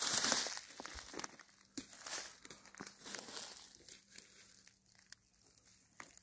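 Footsteps rustling and crackling through dry grass, fallen leaves and beaver-gnawed wood chips, loudest about the first half-second, then scattered small crackles growing sparser and quieter.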